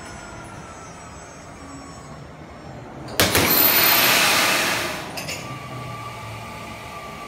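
Zip line trolley running in along the steel cable: a faint whirr, then a sudden loud rush about three seconds in as the eagle-seat carriage sweeps into the station close by, fading after about two seconds to a faint steady whine.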